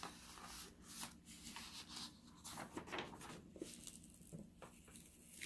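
Faint rustling and brushing of parchment paper as it is rolled out and smoothed flat by hand over an adhesive diamond-painting canvas.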